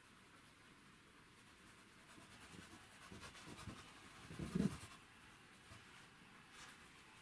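Faint scratching of a dry filbert (cat's tongue) brush dabbing acrylic paint back and forth on a stretched canvas. The strokes start about two seconds in, with the loudest one a little past halfway.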